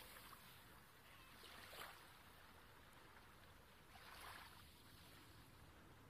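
Near silence: a faint steady hiss, with two soft, brief swells of noise about two and four seconds in.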